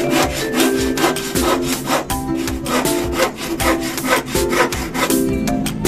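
Handsaw cutting across a wooden plank in quick, even back-and-forth strokes, with background music underneath.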